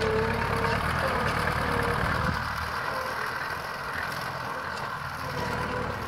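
Tractor engine running steadily as it pulls a plough, its pitch wavering slightly under load; it grows a little quieter after about two seconds as the tractor draws away.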